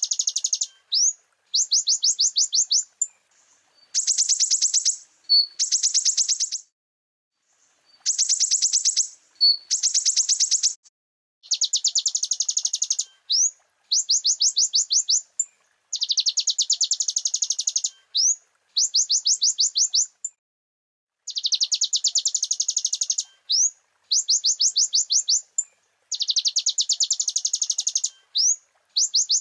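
Konin (kolibri ninja, a sunbird) singing: bursts of very rapid, high-pitched trilled notes, each lasting a second or two, repeated again and again with short pauses and single quick rising notes between them.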